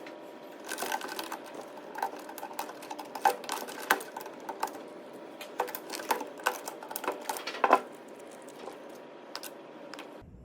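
Irregular clicks and light knocks of small plastic and metal parts being handled, with the sharpest taps about three, four and eight seconds in.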